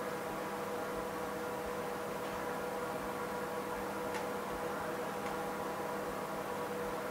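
Steady electrical hum from running repair equipment, with one faint click about four seconds in.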